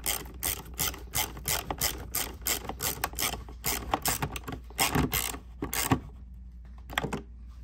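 Ratchet wrench clicking steadily, about five clicks a second, as a bolt on the engine's intake tube is run down, then thinning to a few scattered clicks after about five seconds.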